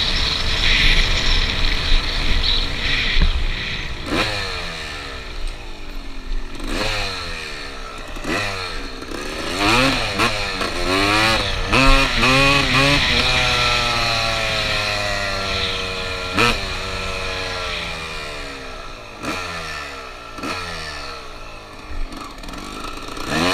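1996 Suzuki RM250's single-cylinder two-stroke engine being ridden hard: repeated rising revs as it pulls through the gears, then a long falling note as it winds down, and a few quick throttle blips near the end.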